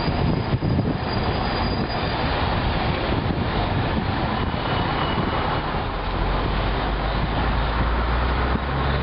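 Steady rumbling road noise of a scooter ride through street traffic, with a deeper rumble swelling in the last few seconds.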